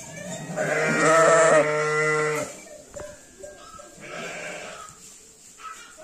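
Sheep bleating: one long, loud bleat about a second in, followed later by softer bleats.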